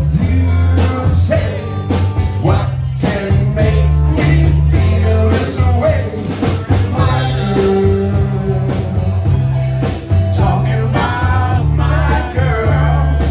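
Background music: a hip-hop track with a heavy, repeating bass line, steady drums and a vocal.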